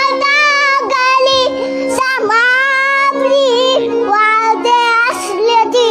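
A toddler singing a raga in long, wavering held notes, over a harmonium's steady reedy drone.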